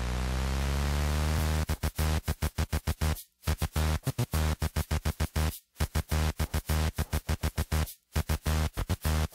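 Electronic dance music: a held synth bass swells up, then about a second and a half in is chopped into a fast stutter, broken by three brief total dropouts.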